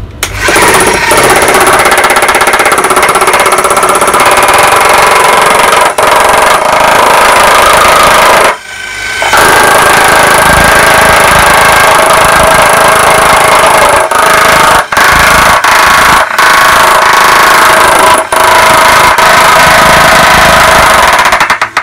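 Makita HM1203C electric demolition hammer running, loudly hammering its chisel down onto a board on a concrete floor. It stops for under a second a little before halfway and drops out briefly a few more times.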